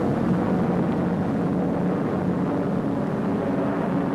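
Jet aircraft engines running in flight, a steady noise weighted toward the low end.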